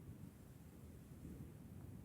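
Near silence outdoors, with a faint, uneven low rumble of wind on the microphone.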